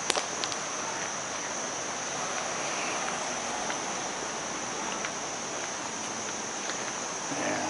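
Steady, high-pitched chorus of crickets and other insects, with an even hiss beneath it.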